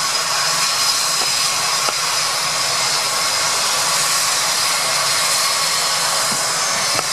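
Medical helicopter's turbine engines running steadily on the ground: a constant rushing hiss with faint high tones through it.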